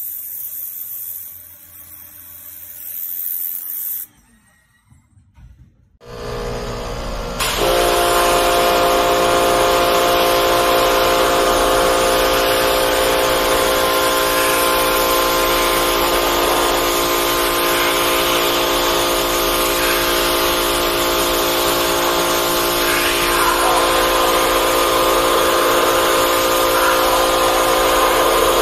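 Pressure washer jet blasting a rusty steel plate on a concrete floor: a loud, steady hiss of spray with a steady droning hum from the machine underneath. It is preceded by a fainter high hiss that drops away about four seconds in, then a brief lull.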